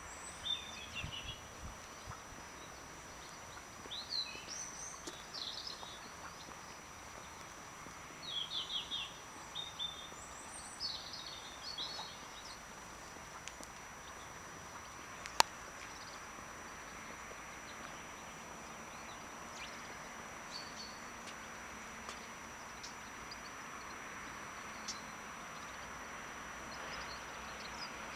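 Small birds chirping outdoors in short bursts of high calls, busiest in the first dozen seconds and sparse after, over a steady background hiss that grows slightly louder near the end. A single sharp click about fifteen seconds in.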